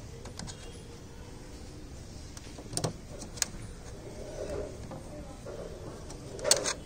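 Screwdriver driving the earth-wire screw into the metal bracket of an AC evaporator coil: grinding turns of the screw with a few sharp clicks, the loudest near the end.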